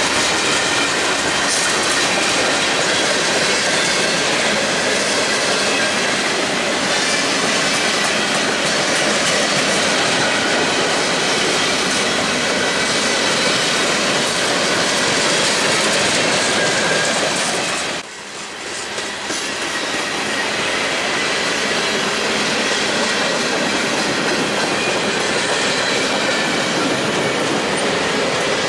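Freight train cars rolling past at close range: a steady rumble and rattle of steel wheels on rail with clickety-clack over the joints and faint thin wheel squeal. About two-thirds of the way through the sound drops off suddenly for a moment, then builds back up.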